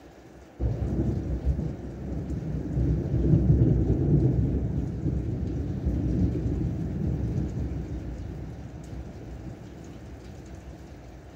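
Thunder over heavy rain. It breaks suddenly about half a second in, swells into a low rumble that peaks a few seconds later, then slowly dies away.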